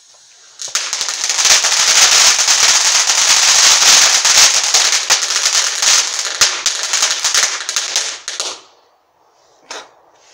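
Ground firework erupting: a loud, dense hissing spray of sparks packed with rapid crackles, starting suddenly and lasting about eight seconds before cutting off, with one more short burst about a second later.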